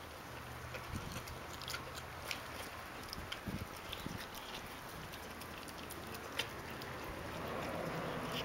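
Pot-bellied pig eating from a plastic food bowl: irregular chewing clicks, several a second at times.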